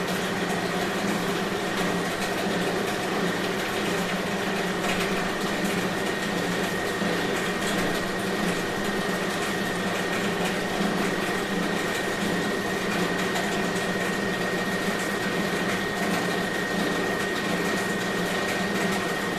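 CNC machine running steadily while machining aluminium, a continuous mechanical noise with a steady high whine.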